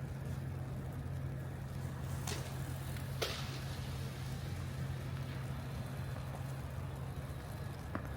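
City street traffic: a steady low engine drone with a wash of traffic noise, broken by a few short sharp clicks or knocks about two, three and eight seconds in.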